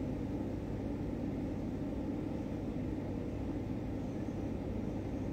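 Steady low hum of room noise, even throughout, with no distinct events.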